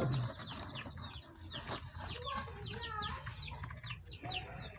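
Chickens calling in the coop: a steady run of short, high, falling chirps, about three a second, with a lower warbling call about two and a half seconds in. A brief rustle at the very start as a hand is drawn out of the nest box.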